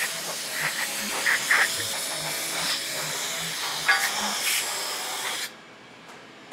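Compressed-air blow gun hissing as it blasts coolant and chips off a freshly machined aluminium supercharger lid; the blast cuts off suddenly about five and a half seconds in.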